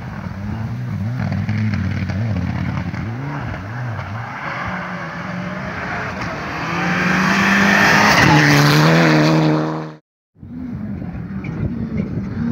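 Rally car engine revving hard through the gears, its pitch climbing and dropping again and again, growing much louder as the car comes close. The sound cuts off abruptly about ten seconds in, and another rally car's engine follows, heard from farther off.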